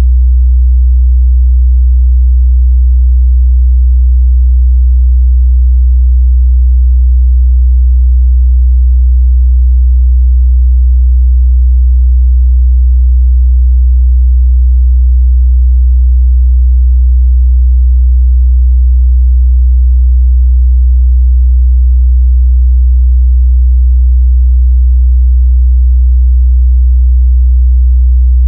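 Steady 62 Hz sine test tone: a loud, unbroken low bass hum at one fixed pitch.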